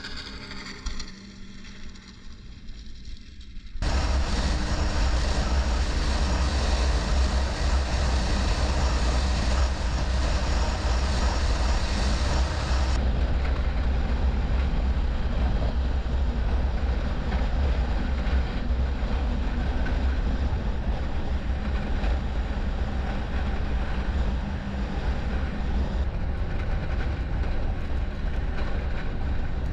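A snowmobile engine passing at a distance for the first few seconds. About four seconds in, the sound jumps to the loud, steady running of a snowmobile heard from on board as it cruises across lake ice, a deep rumble under a rushing noise.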